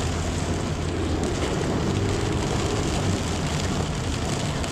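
Heard from inside the cab, a four-wheel drive's engine runs with a steady low hum, over a constant hiss of rain and tyres in the floodwater covering the road.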